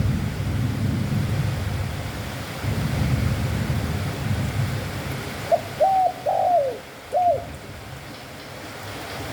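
Spotted dove cooing one short phrase of about four notes a little past halfway through, over a steady low rumble.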